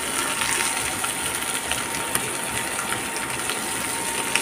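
Sliced ivy gourd frying in oil in a steel pan: a steady sizzle, with a few faint clicks.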